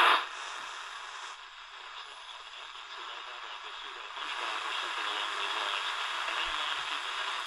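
Static and hiss from a Tecsun DR-910's small speaker as it is tuned across the medium wave band from about 684 to 700 kHz. The noise swells slightly about four seconds in, where it settles on 700 kHz and WLW's signal is weak. A radio announcer's voice cuts off just at the start as the dial leaves the 670 kHz station.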